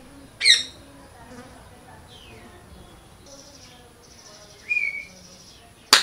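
Parrot screeches: a brief harsh call about half a second in, a shorter call near five seconds and another loud one at the end, over faint falling chirps and a buzzing, insect-like trill in the middle.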